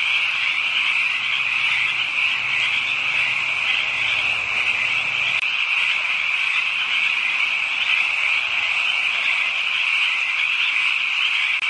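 A dense chorus of many frogs calling at once, making a loud, steady high-pitched din, with a momentary dropout about halfway through.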